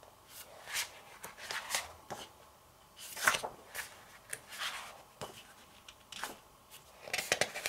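Paper pages of a photobook being turned one after another, each turn a short swish and rustle of paper, the loudest about three seconds in. A quick run of small ticks of paper near the end.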